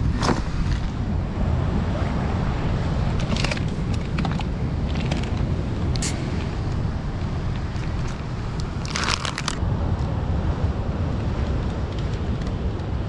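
Steady wind rumble on the microphone over sea surf, with a few short crackles and crunches, the loudest cluster about nine seconds in.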